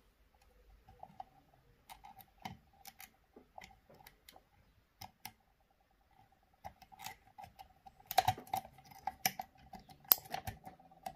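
Small metallic clicks and scrapes of a lock pick working the pins inside an Assa D12 version 2 lock cylinder under tension, over a faint steady ringing tone. The clicking is sparse at first and grows louder and busier about eight seconds in.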